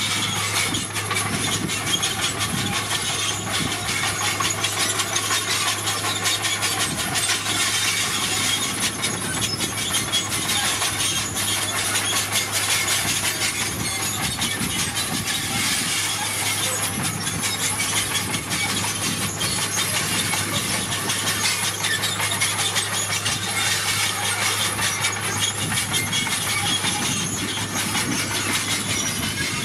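Bulldozer working: a steady low engine hum under a dense, rapid clatter like steel tracks running over gravel.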